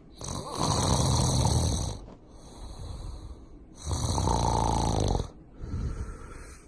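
A man snoring in his sleep: two long, loud snores about three and a half seconds apart, each lasting about a second and a half, with quieter breaths between them.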